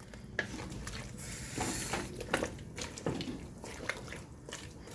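Wet squishing and irregular light knocks of seasoned chicken pieces being moved about in a cooking pot.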